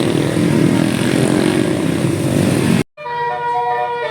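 A vehicle engine running loudly, cut off abruptly about three seconds in. Then a bus's telolet multi-tone musical horn starts playing a tune of held notes.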